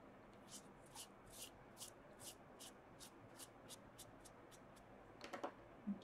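A run of about a dozen short, quick, scratchy rubbing strokes, roughly three a second, then a few sharp clicks and a soft knock near the end.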